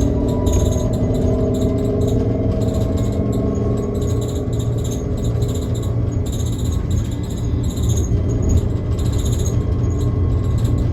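Cabin sound of a New Flyer XT60 electric trolleybus on the move: a steady low road rumble under the whine of its Skoda traction motor, which sinks in pitch and fades over the first few seconds as the bus slows. A faint high pulsing chirp repeats throughout.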